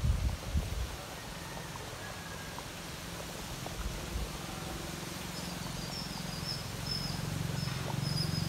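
Thick mutton kuzhambu (curry) boiling hard in a clay pot, a steady low bubbling rumble that slowly grows louder, after a few low thumps in the first second. Short high chirps repeat from about five seconds in.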